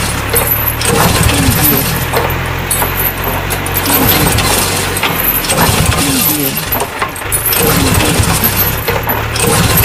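Tractor engine running steadily, with a metal tow chain clinking and rattling.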